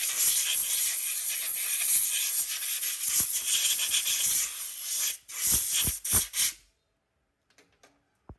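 A long steady hiss of compressed air or spray from a nozzle, then about three short bursts as the trigger is pulsed, each cut off sharply.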